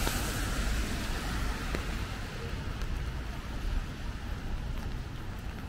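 Traffic on a wet city street: tyre hiss from a passing vehicle that fades over the first couple of seconds, over a steady low rumble of wind on the microphone.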